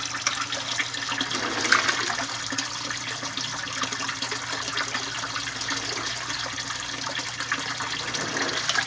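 Water draining from an aquaponic grow bed's bell siphon, pouring out of a PVC elbow and splashing steadily into the fish tank below.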